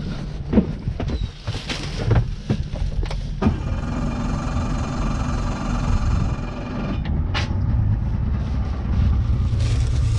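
Yamaha 115 outboard motor running with a steady low rumble, growing louder in the last couple of seconds. A few sharp knocks and clatter of things being handled on the boat sound over it in the first three seconds.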